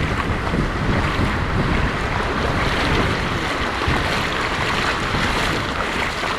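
Sea surf washing onto the beach, with wind buffeting the microphone.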